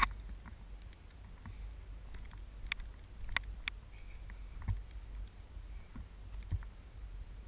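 Scattered light taps and scuffs of a person clambering over sandstone rock, close to the camera, over a low wind rumble on the microphone.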